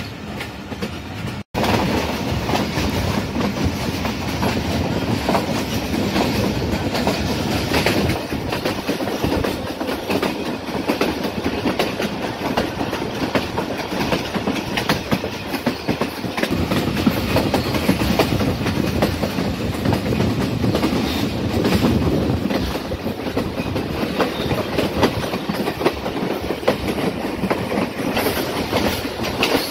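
Passenger train running steadily, its wheels clattering over the rail joints. The sound cuts out for an instant near the start.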